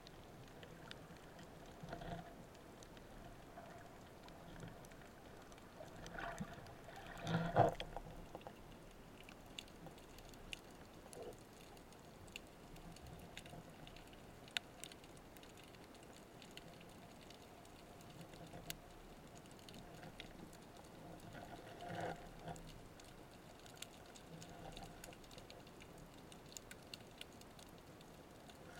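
Underwater ambience picked up by a speargun-mounted camera in its housing on a breath-hold dive: faint hiss with scattered tiny clicks and crackle. A few brief muffled rushes of water movement come through, the loudest about seven seconds in, with smaller ones around two and twenty-two seconds.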